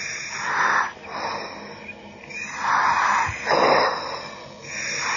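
A diver's breathing heard over the diving communications line: hissing, wheezy breaths through the breathing apparatus, about three of them.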